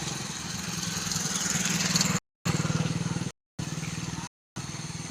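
A small engine running steadily with a fast, even pulse. It grows louder over the first two seconds, and the sound cuts out completely three times for about a quarter second each.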